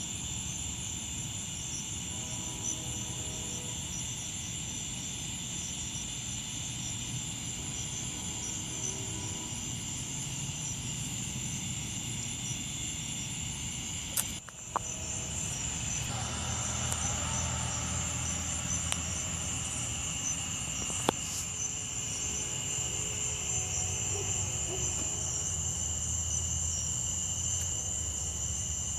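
Night insects trilling steadily in two high pitches over a low rumble, with a sharp click and a brief dropout about halfway through.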